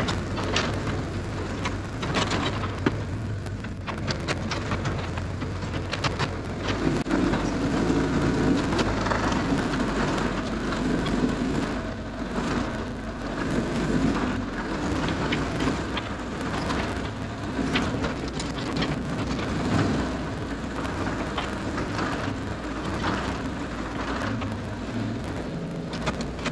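Cat 307SSR mini excavator's diesel engine running steadily at work, with a dense crackle of sharp clicks and snaps over it.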